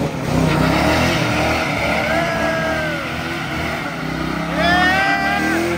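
First-generation Chevrolet Camaro SS V8 revving hard while its rear tyres spin in a burnout. A steady high screech starts about two seconds in, drops away, and comes back near the end.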